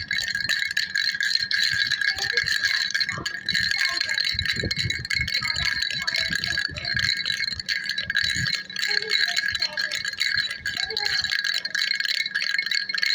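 Baby rattle shaken continuously, a dense steady jingling with bright ringing tones. Low handling knocks come through it for roughly the first eight seconds, then stop.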